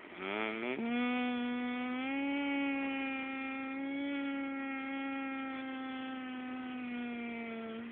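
A person 'mooing' through closed lips: a short rising swoop, then one long steady hummed note held for about seven seconds, ending just before the close.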